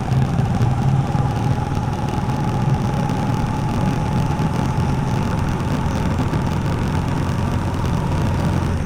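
TVS Apache RTR 4V motorcycle's single-cylinder engine running at a steady speed while being ridden, a low, even drone.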